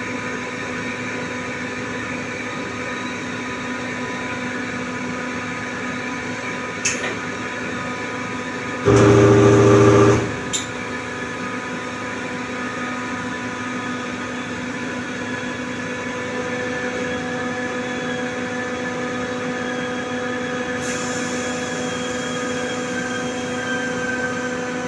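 Compressor machine running with a steady hum made of several fixed tones. About nine seconds in a louder, deeper burst lasts about a second, with short clicks just before and after it.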